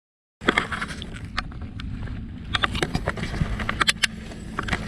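Wind buffeting the microphone as a steady low rumble, with sharp clicks and taps scattered through it, starting abruptly just under half a second in.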